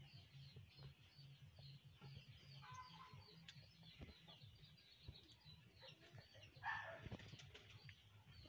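Faint farmyard background of birds: quick, repeated chirping throughout, with short chicken calls about three seconds in and again, louder, near seven seconds.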